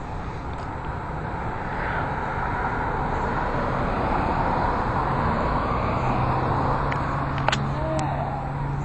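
A stream of cars driving past on the road, their tyre and engine noise swelling over the first few seconds. From about halfway through, a low steady engine hum joins in.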